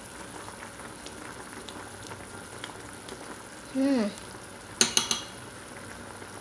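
Chicken soup boiling steadily in a pot, a low bubbling hiss with small pops. About five seconds in, a metal spoon clinks against the pot a few times in quick succession, just after a brief falling tone.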